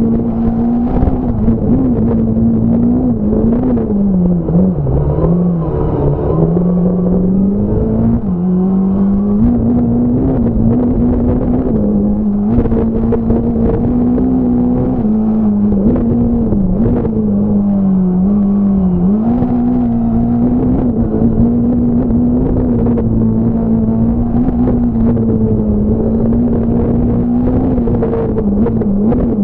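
Fiat Punto S1600 rally car's 1.6-litre naturally aspirated four-cylinder, heard from on board. It runs hard at high revs with a steady pitch, which dips briefly and climbs back several times as the driver lifts and shifts through corners.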